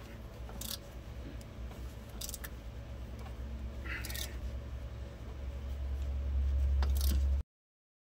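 Socket wrench and extension clinking and scraping on metal now and then while working on the hub bolts, over a low rumble that grows louder; the sound cuts off suddenly near the end.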